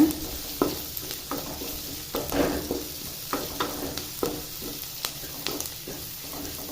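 Chopped onions sautéing in hot oil in a kadai, sizzling steadily, while being stirred in repeated short strokes that knock and scrape against the pan.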